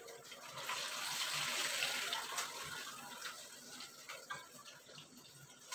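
Ground chili paste sizzling in hot oil in a wok as it is sautéed until the oil separates, with a few light clicks from a wooden spatula stirring it. The sizzle is strongest in the first couple of seconds and eases off toward the end.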